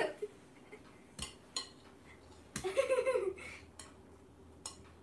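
A few sharp taps against a glass mixing bowl as a raw egg is knocked on it to crack it open, with a short voice sound about halfway through.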